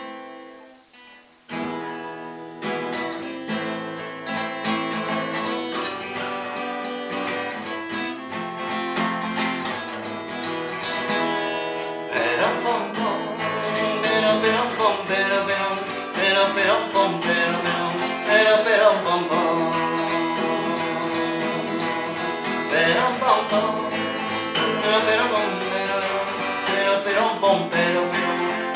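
Acoustic guitar strummed, starting about a second and a half in, with a man singing along from about halfway through.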